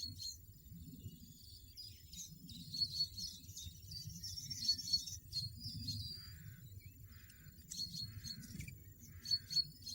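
Songbirds chirping and twittering: many short high notes and quick trills, scattered through, over a soft low rumble.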